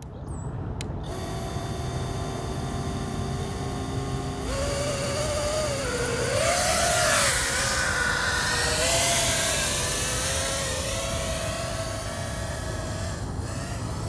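Cinewhoop FPV drone's four 2004 motors spinning 3.5-inch propellers in flight, a buzzing whine that rises and falls in pitch as the throttle changes, loudest about halfway through, over a steady low rumble.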